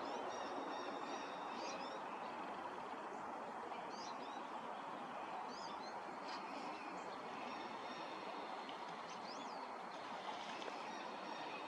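Steady, even rushing background noise with small birds giving short, high chirps and trills several times over it.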